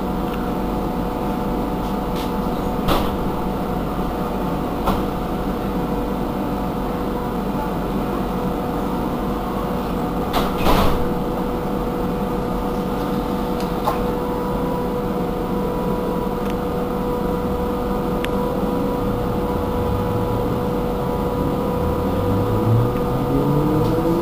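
Irisbus Cristalis ETB12 trolleybus standing with its electrical equipment giving a steady hum and whine, broken by a few short clicks and knocks, the loudest about ten seconds in. In the last few seconds a stepped whine starts and climbs in pitch.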